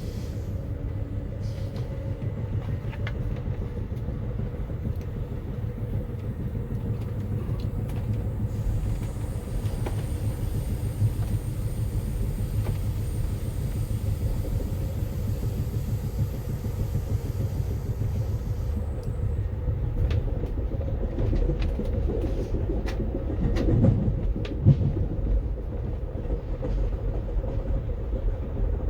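Amtrak Empire Builder passenger train running along the track: a steady low rumble with scattered clicks, and a short louder stretch with a couple of sharp knocks about three-quarters of the way through.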